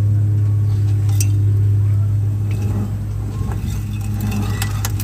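Steady low mechanical hum with a few light metal clinks from hand work on a truck's wheel hub, where the melted bearing seal is being removed.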